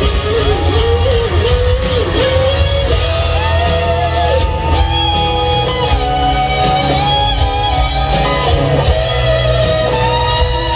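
Live rock band, with a lead electric guitar playing a melodic solo line with string bends over bass and drums. It comes through a stadium PA and is heard from the stands.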